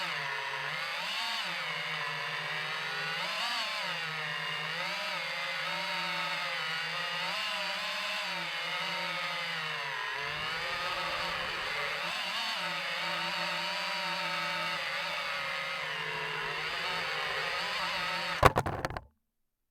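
DJI FPV drone's motors and propellers whining steadily, the pitch rising and falling as the throttle changes. Near the end there is a sharp knock, and then the sound cuts off abruptly.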